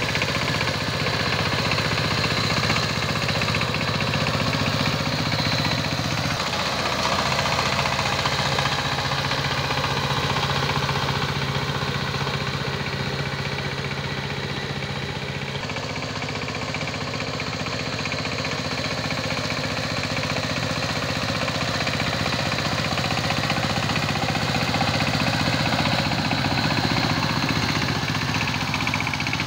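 Two-wheel power tiller's single-cylinder diesel engine running steadily under load as the machine churns through flooded paddy mud. Its note changes slightly twice, about a fifth of the way in and again about halfway.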